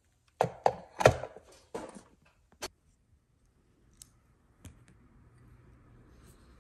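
Kitchenware knocking and clattering on a granite countertop: a quick run of sharp knocks in the first two seconds, one more knock a little later, then a couple of faint clicks.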